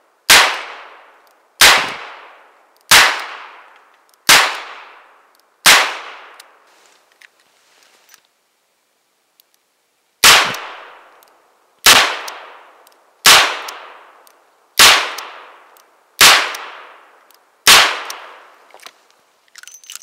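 Llama Martial .38 Special revolver firing: five shots about a second and a half apart, a pause of about four seconds, then six more at the same pace, each trailing off in a short echo.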